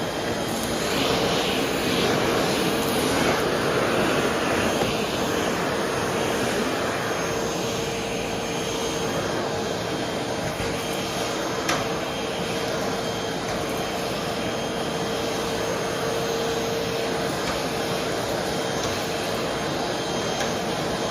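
Vacuum cleaner running steadily, a continuous rush of air over one steady motor tone. It is louder and rougher for a few seconds near the start, with a single small click about halfway through.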